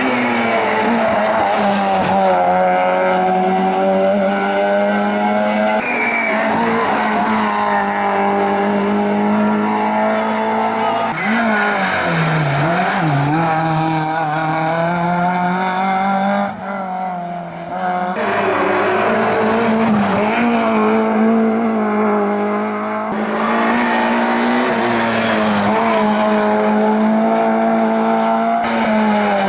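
Hillclimb race cars at full throttle, engines revving up and dropping back through gear changes, with tyres squealing. The sound switches abruptly from one car to another every few seconds.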